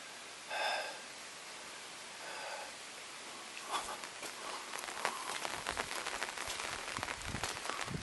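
A steady rush of running water under two short calls, a bird's, in the first three seconds. From about four seconds in, dense crackling and rustling grows louder.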